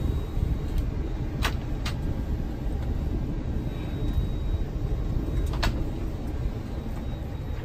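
Steady low rumble of an Airbus A321 cabin at the gate during boarding, with a few sharp clicks and faint passenger murmur.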